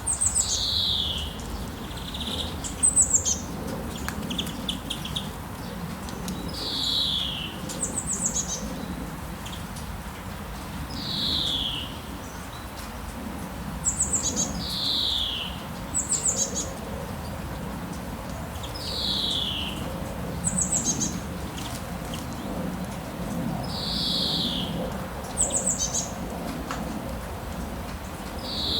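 Songbirds calling over a steady background hiss of rain. A clear falling whistle repeats about every four seconds, alternating with a short, high, stuttering trill.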